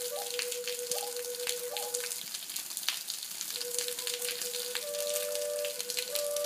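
Native American-style double flute: one chamber holds a low drone while the other adds short higher melody notes. The drone breaks off for about a second and a half in the middle, then comes back. A crackly hiss runs underneath.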